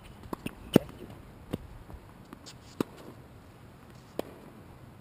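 Tennis rally on a hard court: sharp pops of racket strings striking the ball and the ball bouncing, spaced a second or more apart, the loudest a little under a second in.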